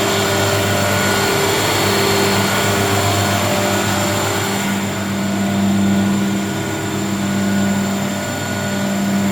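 Weinig Powermat 400 LE four-sided moulder running, a steady machine hum with several held tones over a broad hiss; the hiss eases slightly about halfway through.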